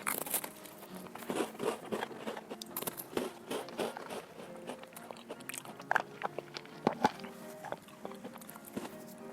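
Biting into and chewing a crisp biscuit, a run of short crackles with a few sharper snaps about six and seven seconds in.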